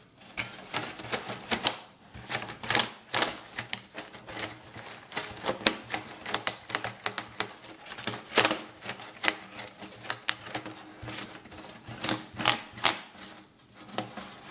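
Thin titanium foil stovepipe crinkling and clicking under gloved hands as wire cables are rolled back along it: a rapid, irregular run of sharp ticks and crackles.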